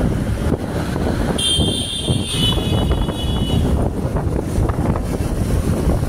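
Wind buffeting the microphone on a moving motorcycle taxi, over a steady rumble of engine, tyres and traffic. About a second and a half in, a high, steady shrill tone sounds for roughly two seconds.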